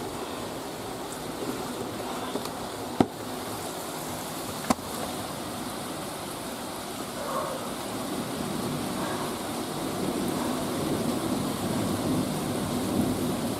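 Steady rain from a thunderstorm, with two sharp clicks about three and four and a half seconds in, and a low rumble building in the second half.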